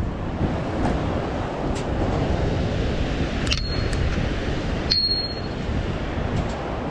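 Spillway water rushing and churning steadily. Two short metallic pings cut through it about a second and a half apart, near the middle.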